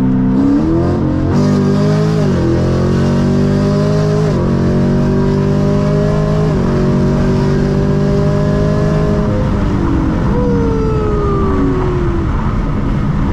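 Sixth-generation Chevrolet Camaro 1LE, tuned on E85, pulling hard at full throttle from a 50 mph roll, heard inside the cabin. The engine note climbs and drops back at each of several upshifts, then the driver lifts off near the end and a falling whine follows as the car slows.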